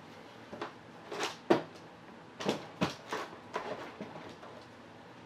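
A series of short knocks and scuffs from objects being handled on a work table, about seven in three and a half seconds, the loudest about a second and a half in.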